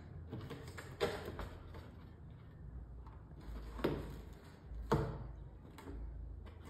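A cat clawing and biting at a cardboard shoe box: faint scratching of claws and teeth on cardboard, with three sharper scrapes or knocks about a second in, just before four seconds and at about five seconds.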